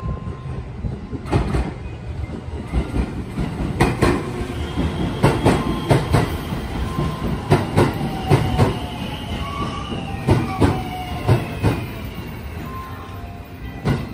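JR West 223 series electric train pulling in along a station platform: the wheels click repeatedly over the rail joints, and a thin high whine slides down in pitch as the train slows.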